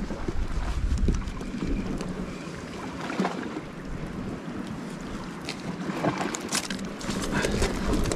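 Wind buffeting the microphone over the wash of the sea against the rocks, with scattered clicks and scuffs that cluster about three seconds in and again in the second half.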